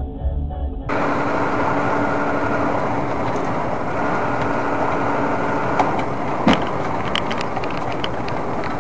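From about a second in, steady engine and tyre noise inside a car cruising along a highway, with a faint steady hum. There is a short thump about six and a half seconds in, and a few sharp clicks follow.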